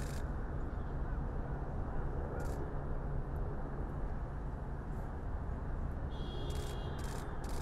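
Steady low hum of idling bus engines, with a few sharp clicks and, near the end, a brief high beep among a quick run of clicks.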